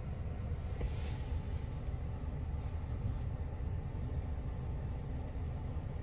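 Diesel engine of a Mack MRU rear-loader garbage truck with a McNeilus body, running steadily at the curb. A brief hiss comes about a second in.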